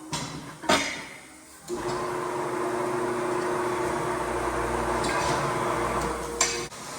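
Two sharp knocks, then a machine running steadily for about five seconds, a steady hum over a hiss, cutting off abruptly.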